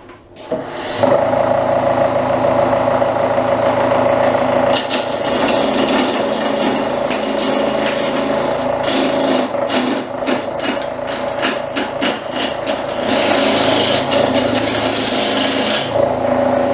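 Wood lathe motor starting and running with a steady hum. From about five seconds in, a hand chisel roughs down a square glued-up laminated timber blank, its spinning corners striking the tool in rapid knocks as big chips come off.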